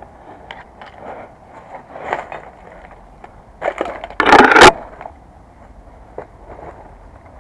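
Crunching and scraping close to the microphone as an airsoft player moves, with scattered small clicks and one loud crunching scrape about four seconds in.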